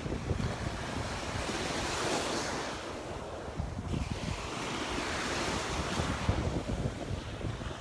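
Gulf surf breaking and washing up the beach, swelling about two seconds in and again around five seconds in, with wind buffeting the microphone as a low rumble.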